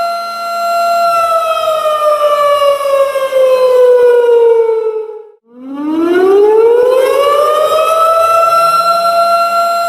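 Tornado warning siren sounding a steady high tone, then winding down in pitch over about four seconds until it almost dies out about halfway through, then winding back up to the same steady pitch.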